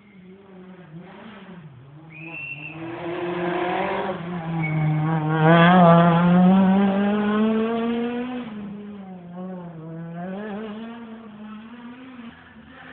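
Rally car's engine coming through a hairpin bend: it swells to its loudest about six seconds in, its pitch climbing as it accelerates out of the turn, then fades away. A brief high squeal about two seconds in.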